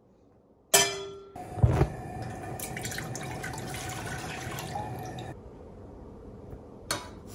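Whole milk poured from a plastic measuring cup into a stainless steel saucepan, a steady pour of about three seconds that stops suddenly. Before it come two sharp metal knocks with a brief ring as the pan is set on the gas stove grate, and near the end there is a single click of metal tongs.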